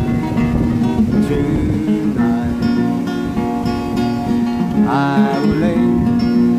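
Acoustic guitar played solo, picked and strummed in a steady repeating pattern of sustained notes: an instrumental passage between sung lines of a folk song.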